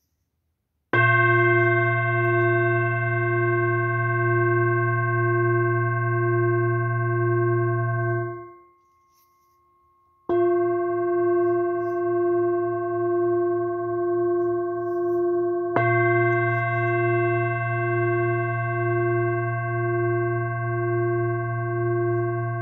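Large hand-beaten singing bowl struck with a mallet three times: about a second in, again near halfway and once more about two-thirds through. Each strike rings on as a deep hum with higher overtones and a slow, wavering pulse; the first ring fades out before the second strike.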